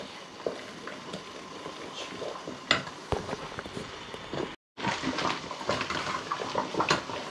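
A spoon stirring thick, nearly cooked carp roe in a stainless-steel pot over a steam bath, scraping and clicking against the metal, with one sharper clink a little before the middle. The sound cuts out for a moment about two-thirds of the way in, and the stirring clicks come thicker after it.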